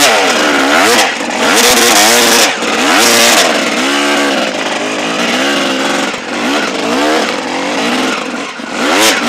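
Dirt bike engine revving hard, its pitch rising and falling again and again as the throttle is worked. Short bursts of rushing noise come and go several times.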